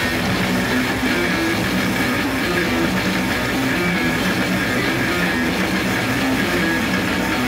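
A heavy metal band playing live: distorted electric guitars, bass and drum kit in a dense, loud, driving riff.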